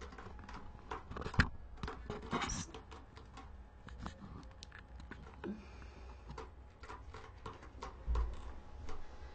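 Handling noise as the camera is moved and set down on the floor: scattered light taps and rustling, with a sharp knock about a second and a half in and a low thump near the end.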